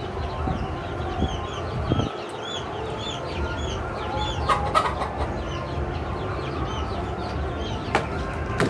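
Chicks peeping over and over, two or three short high chirps a second, above a steady low rumble, with a few sharp clicks about halfway through and near the end.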